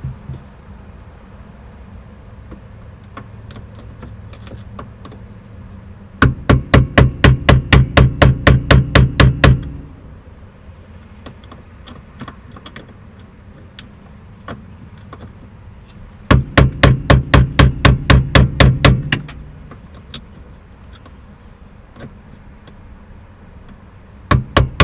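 Hammer striking a flat-head screwdriver set against the steering-column shear bolts of the ignition switch, tapping them loose: two runs of quick metal strikes, about five a second, each lasting about three seconds, with a third run starting near the end.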